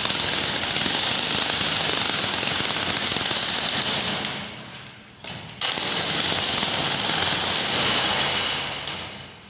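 Jackhammer hammering. It tails off and stops about halfway, starts again abruptly, and runs down again near the end.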